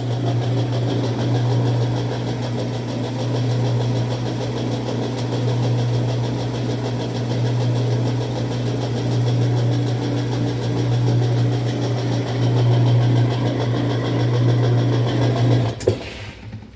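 Whirlpool direct-drive washing machine in its spin cycle: a steady motor hum with scraping, popping noises as the drum turns without reaching full spin speed. It cuts off suddenly near the end.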